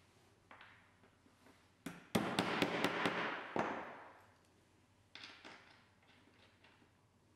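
Claw hammer tapping on an MDF workbench: about half a dozen sharp strikes in quick succession about two seconds in, then a few lighter knocks a little after five seconds.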